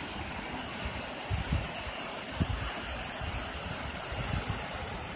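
Sea surf washing onto the beach as a steady rushing noise, with gusts of wind buffeting the microphone in irregular low rumbles.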